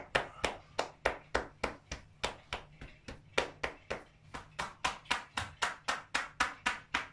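Shoulder-tapping massage (kata-tataki): a therapist's hands slapping rhythmically on a man's shoulders and upper back, about three taps a second.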